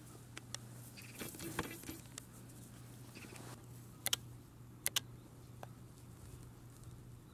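Pomeranian puppy moving through dry grass: a soft rustle about a second in, scattered light clicks, and two sharp double clicks about four and five seconds in, over a faint steady low hum.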